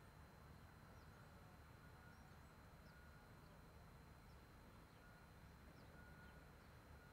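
Near silence: faint outdoor ambience with a low rumble and faint, brief bird chirps every second or so.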